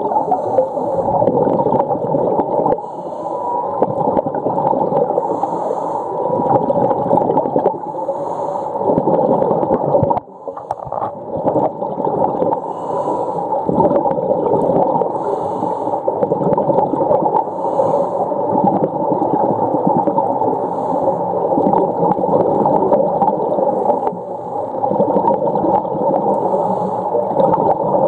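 Humpback whales calling underwater, a dense continuous mix of moans and whines. A short faint hiss recurs about every two seconds over it.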